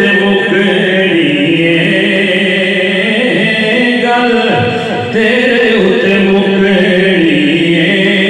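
Devotional chanting sung in long, held melodic phrases, with a short break for breath about halfway through.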